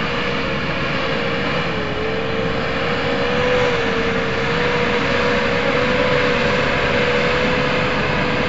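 A motor running steadily: one held whine over loud rushing noise.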